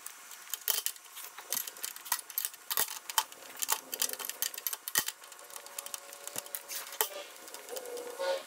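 Hand tools ticking and clinking against steel in quick, irregular sharp strokes as a nut is worked off the bolt of the bracket that holds the hydraulic pressure line.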